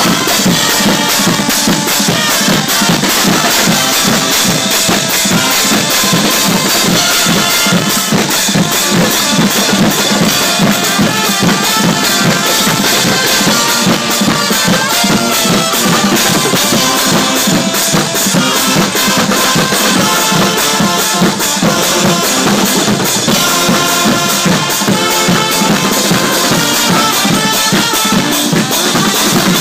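A Guggenmusik carnival band playing: trumpets and sousaphones carry the tune over a steady beat of bass drums, snare and cymbals. The music is loud and unbroken.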